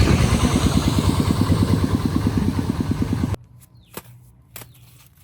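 A small engine running with a fast, even low putter, stopping abruptly a little over three seconds in; a couple of faint clicks follow.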